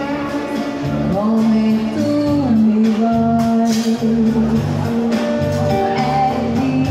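A live pop duo performing: a singer holds and slides between notes over electric guitar and a repeating bass line, heard in a large, echoing hall.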